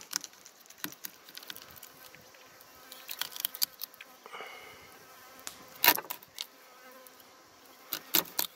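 A filleting knife working along a trout's backbone on a wooden cutting board, giving scattered soft clicks and ticks, with one sharp knock about six seconds in. An insect buzzes faintly in the background.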